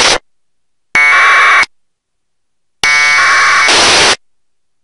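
FM receiver audio from an RTL-SDR software radio with squelch on: short buzzy bursts of noise as the squelch opens and snaps shut, three times, with dead silence between them.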